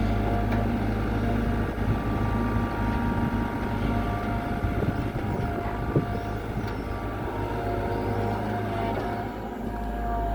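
Kobelco Yutani SK 120 excavator's diesel engine running steadily while it digs, with a sharp knock about six seconds in.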